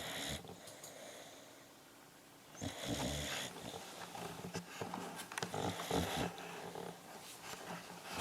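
A sleeping pet snoring: irregular snoring breaths, the longest about three seconds in, followed by a run of shorter ones.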